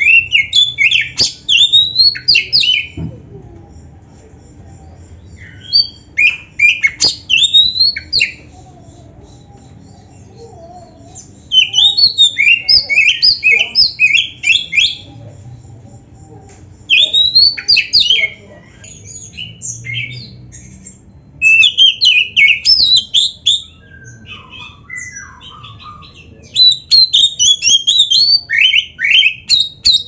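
Oriental magpie-robin (kacer) singing loudly in rapid bursts of varied high whistles and chirps. The song is a full 'gacor' song packed with mimicked phrases (isian). It comes in about six bursts of one to three seconds, with short pauses between them.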